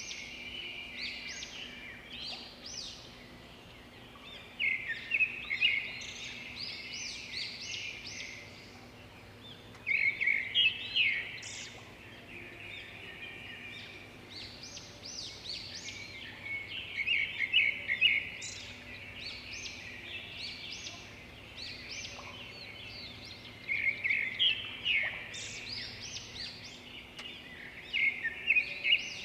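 Several birds chirping and singing at once: a dense chorus of quick, high calls, with louder flurries every few seconds.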